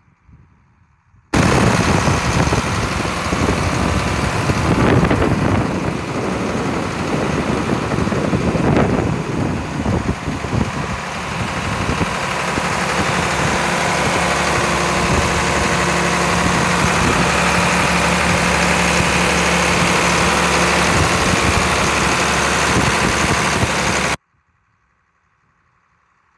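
John Deere 4640's six-cylinder diesel engine running, uneven at first and settling to a steady idle after about ten seconds. The sound comes in suddenly just after the start and cuts off abruptly near the end.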